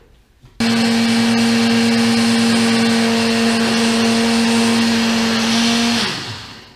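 Small electric blade grinder grinding flaxseed: a loud, steady motor hum that switches on suddenly about half a second in, runs for about five seconds, then winds down and stops near the end.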